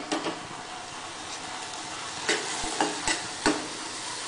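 Buttered sweet corn kernels sizzling in a steel pan while a metal spoon stirs and tosses them. There are a few sharp clinks of the spoon against the pan, near the start and again about two to three and a half seconds in.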